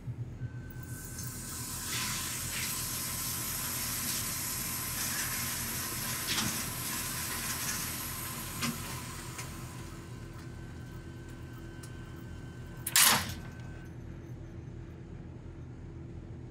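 Indoor range's motorized target carrier running along its overhead track, a steady whirring hiss with a faint whine that fades after several seconds. A brief loud noise comes about thirteen seconds in.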